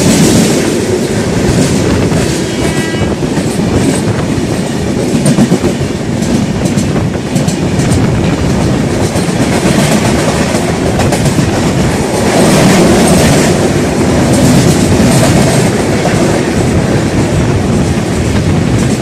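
Sanghmitra Express passenger coaches running past on the next track: a loud, continuous rush and rumble of wheels on rail, swelling and easing as the coaches go by.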